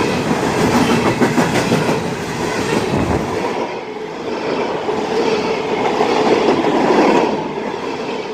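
Empty coal hopper cars of a long freight train passing close at high speed: a steady rushing and rattling of steel wheels on the rails, with clicking from the wheels in the first couple of seconds.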